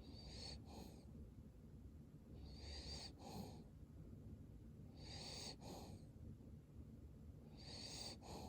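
Cavalier King Charles Spaniel snoring in its sleep: faint, slow breaths about every two and a half seconds, each with a high whistling wheeze.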